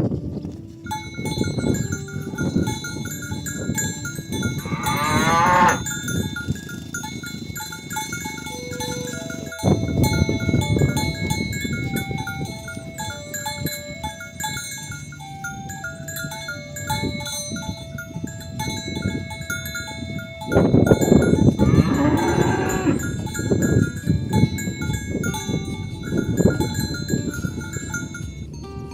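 Cattle bells clanking continuously as the animals move. Two long moos sound out over them, a short one about five seconds in and a longer, louder one about twenty-one seconds in.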